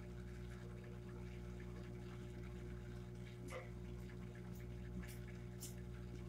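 Steady low electrical hum, with faint scratching and a few light ticks from a crayon worked over paper, the ticks falling about halfway through and again near the end.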